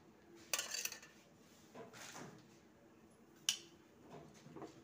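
A cooking utensil clinking and scraping against a metal pot of boiling noodles while stirring: a sharp clink about half a second in, a softer scrape around two seconds, and another sharp clink about three and a half seconds in.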